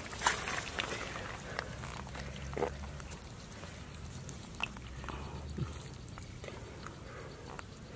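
Scattered soft thumps and wet squelches as a large fish is handled and set down on muddy grass, with bare feet stepping in the mud. A few sharp clicks and knocks stand out, the loudest just after the start.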